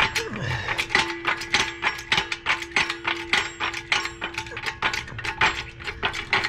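Rapid metallic clicking and clanking, about three to four sharp clicks a second, as metal parts are worked by hand.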